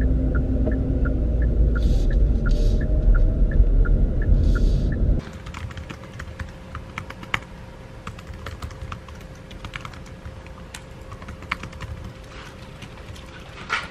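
Low road rumble inside a moving car's cabin with a steady light ticking about three times a second; about five seconds in it cuts to quick clicking of a computer keyboard being typed on.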